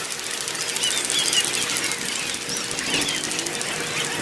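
Parade street sound played back at four times speed: crowd voices and passing vehicles turned into scattered high squeaky chirps over a dense, fast-ticking hiss.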